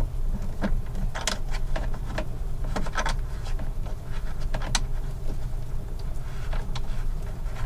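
Cables and plastic connectors being handled and bent into a loop: scattered small clicks and rattles of wire against fittings, over a steady low hum.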